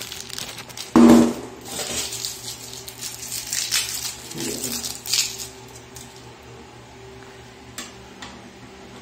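Clinks, knocks and scrapes of a small metal threaded pipe fitting being handled and fitted onto a toilet cistern's water inlet, with one loud knock and a short ring about a second in.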